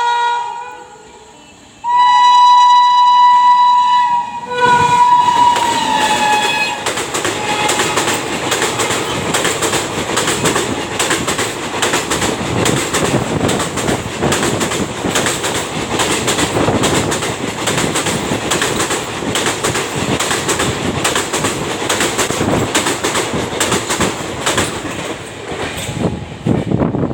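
WAP-7 electric locomotive's triple-tone horn sounding two long, loud blasts, the second dropping in pitch as the locomotive passes. The 22-coach express then goes by at speed for about twenty seconds: a steady rushing rumble with a quick, even clatter of wheels over rail joints.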